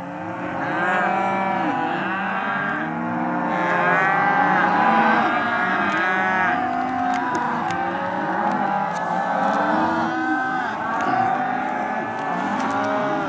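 Many Hereford calves bawling over one another, dozens of overlapping calls rising and falling without a break. This is the bawling of freshly weaned calves calling for their mothers.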